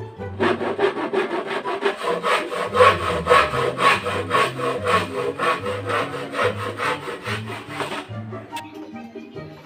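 Hand saw cutting through plywood in quick, even back-and-forth strokes, several a second, stopping about eight seconds in.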